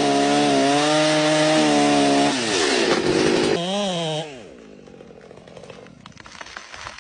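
Chainsaw running at high revs with a steady pitch, which sags a little after about two seconds. It revs up and back down once more, then falls away about four seconds in, leaving quieter crackling and ticking.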